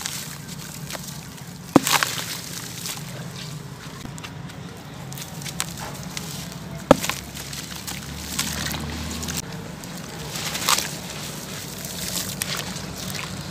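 Crunchy sand-cement chunks dipped in a basin of water and crumbled by hand: water sloshing with gritty crumbling and crumbs splashing in. Two sharp knocks, one about two seconds in and one about halfway through.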